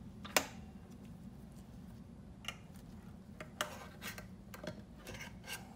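Handling a metal can of Hysol 9460 epoxy hardener and working at its lid: one sharp click early, then a scatter of lighter clicks and scraping, over a faint steady hum.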